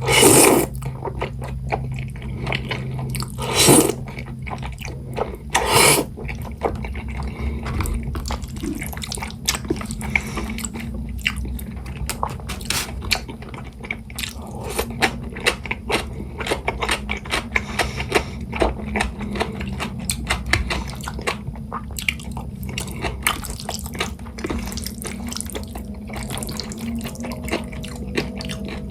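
A person eating jajangmyeon: three loud slurps of the noodles in the first six seconds, then a long stretch of wet chewing and mouth clicks.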